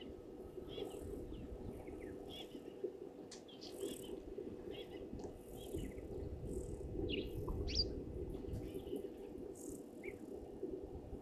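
Birds giving short, repeated chirps and calls, one louder rising call near the end, over a steady faint hum and low outdoor background noise.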